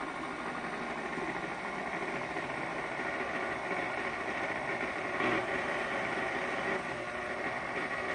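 Electric kitchen mixer running steadily, beating muffin batter.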